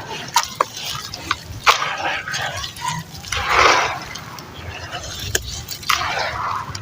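Chunks of sand-and-cement crumbling in plenty of water, with sharp crackles and wet splashing; the loudest sloshing burst comes about halfway through.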